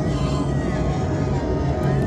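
Documentary background music, dense and steady in level.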